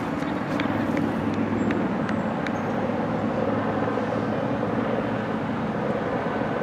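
Steady, unbroken engine rumble with a low hum, from motor traffic or a similar engine some way off.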